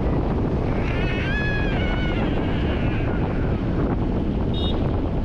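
Wind buffeting the microphone of a camera on a moving motorcycle, a steady rushing noise over the running of the bike. A short high-pitched tone sounds about a second in.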